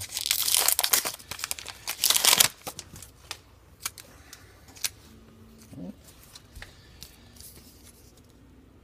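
Foil trading-card pack wrapper being torn open and crinkled for about two and a half seconds, then a few soft clicks and rustles.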